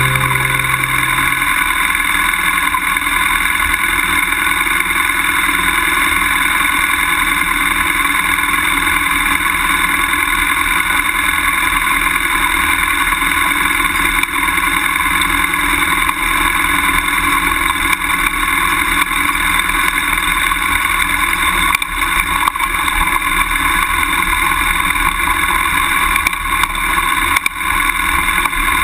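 BMW F800GS motorcycle riding up a grassy track, its parallel-twin engine running steadily under wind and tyre noise, heard from a camera mounted low by the rear wheel. The sound stays even throughout, with a couple of brief dips in loudness near the end.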